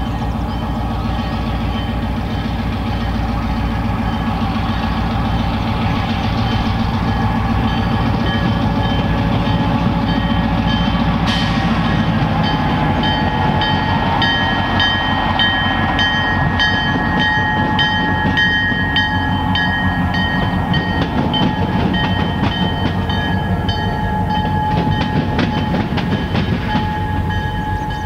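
Freight train of tank cars crossing a railway diamond. A heavy diesel rumble fills the first part, then from about twelve seconds in the car wheels hammer rhythmically over the diamond's joints, with thin steady squealing tones above.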